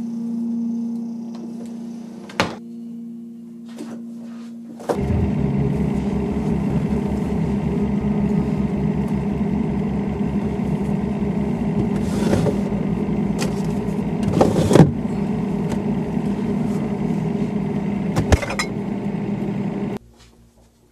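A low steady hum, then about five seconds in a louder, rapidly pulsing low rumble starts abruptly. It runs with a few sharp clicks along the way and cuts off suddenly near the end.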